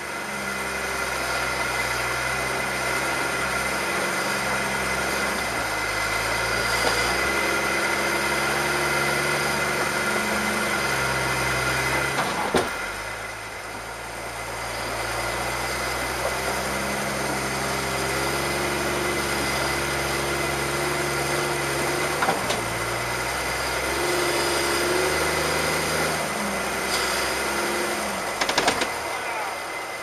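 Jeep Cherokee XJ engine running close to the microphone under light throttle while rock crawling, its revs stepping up and down again and again. A sharp knock about twelve seconds in, then a few sharper knocks near the end.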